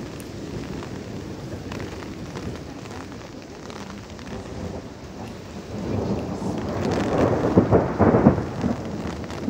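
Steady rain falling, with a roll of thunder that builds about two-thirds of the way through, crackles loudest near the end, then eases off.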